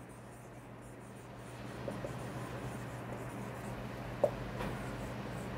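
Marker pen writing on a whiteboard: a faint scratching, with a brief click about four seconds in.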